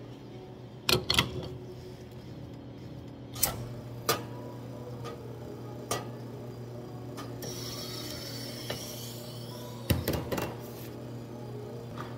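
Glass espresso shot pitchers clinking sharply several times as they are set down and shifted on an espresso machine's metal drip-tray grate, over the machine's steady hum. A hiss starts about halfway through and runs for a couple of seconds as the shots begin.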